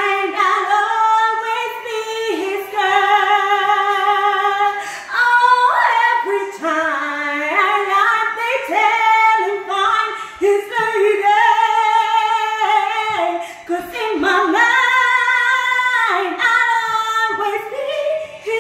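A woman singing unaccompanied, drawn-out runs and long held notes with vibrato.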